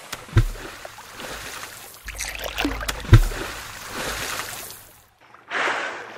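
Water splashing and rushing in a sea lion pool, with two heavy thumps, one about half a second in and one about three seconds in. After a brief lull near the end comes a sudden rushing blast that fades: a whale exhaling through its blowhole at the surface.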